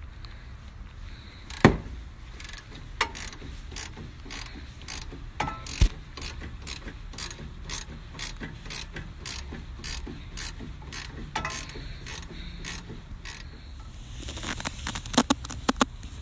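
Hand ratchet wrench clicking in an even series of sharp clicks, about two to three a second, with a louder knock or two early on and a quicker flurry of clicks near the end.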